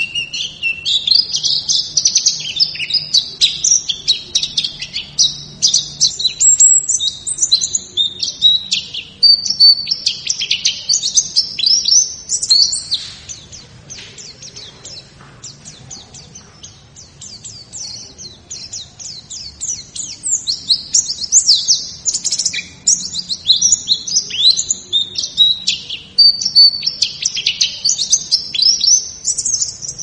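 Songbird song: a rapid, varied, high-pitched run of chirps and trills. It drops to a softer, sparser stretch for several seconds midway, then picks up again.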